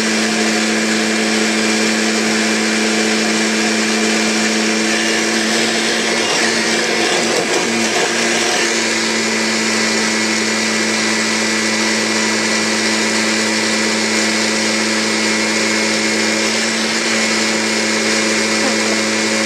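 Upright vacuum cleaner running with a loud, steady motor drone, its note wavering briefly about a third of the way in.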